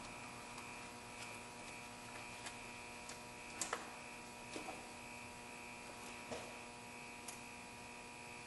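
Steady electrical hum, with a few faint light clicks and scuffs as a rag wipes a battery cable terminal clamp.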